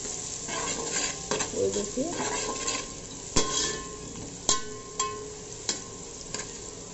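Thinly sliced onions sizzling as they fry in hot oil in an aluminium pot, stirred with a metal spatula. A few sharp clicks of the spatula against the pot sound in the second half.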